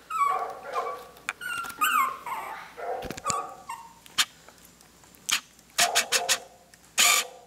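Maltipoo puppies whining and yipping: a string of short high-pitched whines, some falling in pitch, then sharper short yips in the second half.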